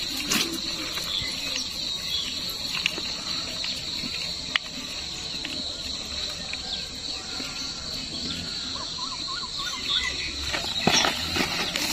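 Steady high-pitched insect drone from crickets or cicadas. Over it come occasional clicks and soft rustling as a mesh shrimp trap is shaken out over a bucket of live shrimp, and a bird chirps a few times around nine seconds in.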